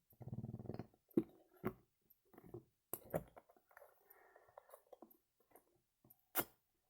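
Handling noises from a small plastic slime toy that has jammed: a short squelch near the start, then a series of separate clicks and snaps as it is worked by hand.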